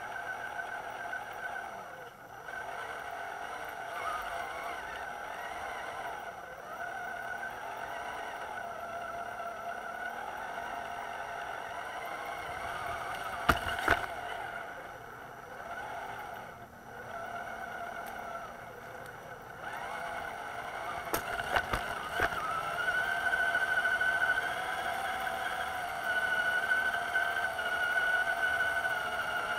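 RC crawler truck's electric motor and gearbox whining as it drives, the pitch wavering up and down with the throttle and dropping away briefly a few times. A few sharp knocks come about midway and again a little later.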